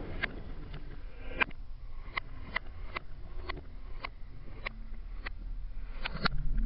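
Irregular sharp clicks, about two a second, over a steady low hum; near the end a few faint low tones come in and it grows louder.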